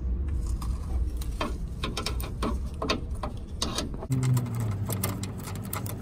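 A wrench working the bolt of a truck's airbag impact sensor loose: a run of irregular metallic clicks. A low hum joins about four seconds in.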